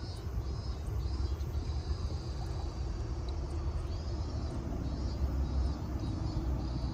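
A fishing reel being cranked steadily to retrieve a lure, a faint whir pulsing about twice a second, over a low rumble of wind on the microphone.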